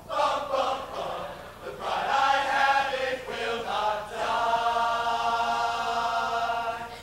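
Men's chorus singing together, then holding one long final chord from about four seconds in until it cuts off near the end.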